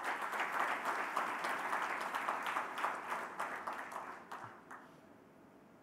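Audience applauding, starting at once and dying away about five seconds in.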